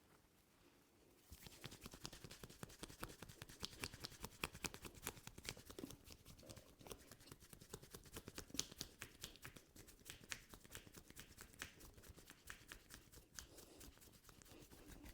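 Hands massaging a head, fingers working through hair and over the scalp: a dense run of crackly clicks and rubs that starts about a second in.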